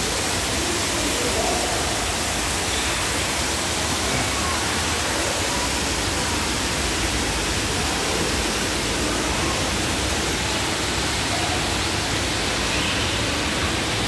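Waterfall splashing into a rock pool: a steady, even rush of falling water.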